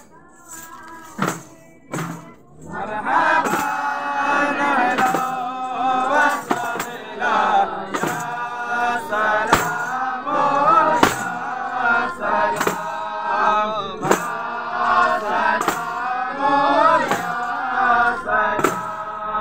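Men singing together in chorus, accompanied by hand-held jingle tambourines struck in a steady beat. For the first few seconds only the tambourine strikes sound, then the singing comes in.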